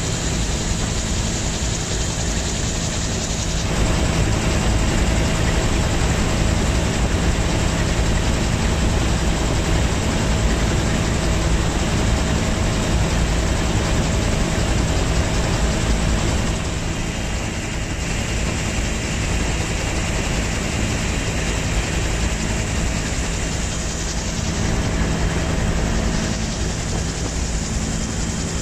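A vehicle's engine running steadily, with a constant low hum under a broad rushing noise, and no sudden events.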